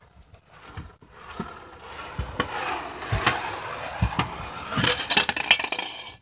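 Skateboard wheels rolling over a rough concrete driveway: a gritty rumble that builds and is loudest around the middle and near the end, with scattered clacks and knocks of the board.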